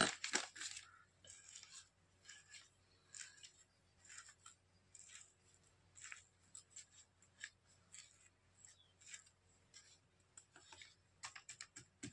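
Metal spoon scraping and tapping on a paper sheet and paper tube while scooping powdered firework composition into the tube: short dry scrapes one or two a second, with a louder knock right at the start.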